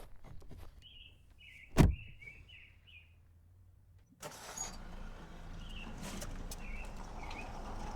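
Layered sound-design effects: a single heavy thump, a run of short high chirps, then a sudden switch about four seconds in to a steady noisy background with a low rumble and a few more scattered chirps.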